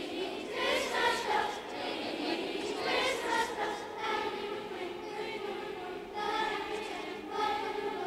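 Children's school choir singing together under a conductor, many voices holding sustained phrases.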